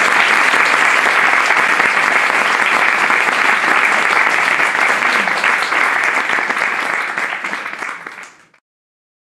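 Audience applauding, a dense steady clapping that thins out about seven seconds in and then cuts off suddenly.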